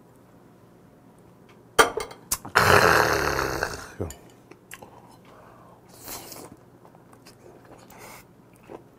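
A small shot glass clicks down on a wooden table, then a loud breathy exhale after a shot of soju lasts about a second and a half and fades. Light clicks of chopsticks against a plate follow as steamed squid is picked up.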